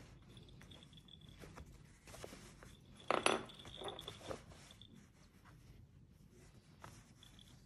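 Small metallic jingling and clinking from a cat's collar bell as the cat squirms and paws at a hand, with a louder clatter about three seconds in.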